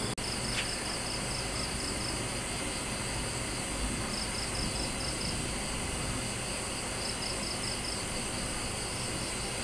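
Steady background hiss, with faint runs of rapid, high-pitched chirps coming three times.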